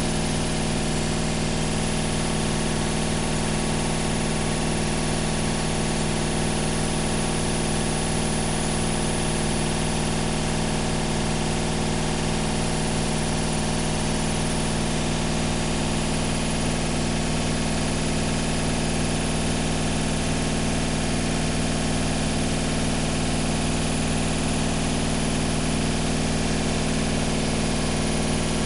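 Washing machine running: a steady motor hum with several held low tones and a rapid fine pulsing underneath, unchanging throughout.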